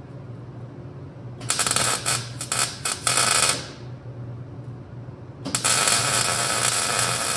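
Electric arc welding: a short, stuttering bead about a second and a half in, then a longer continuous bead starting about five and a half seconds in, each a loud crackling sizzle.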